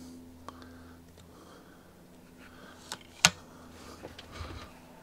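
Weihrauch HW 35K spring-piston air rifle fired once, discharging the cocked rifle: a single sharp shot about three seconds in, preceded by a small click and followed by brief handling knocks.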